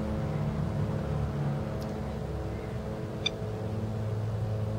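A steady, low, machine-like hum with an even pitched drone, like an engine or motor running nearby. One short, sharp tick about three seconds in.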